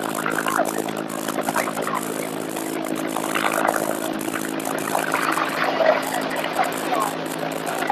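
Helicopter hovering, a steady engine and rotor drone, over the noise of heavy surf.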